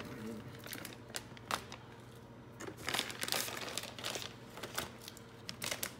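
Plastic bag of shredded cheese crinkling as it is handled, a run of short crackles that is busiest a little past halfway.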